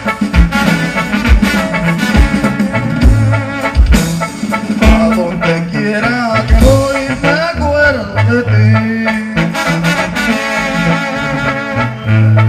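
Live Mexican banda music: a sousaphone bass line with brass and a steady drum beat, and a man singing over it.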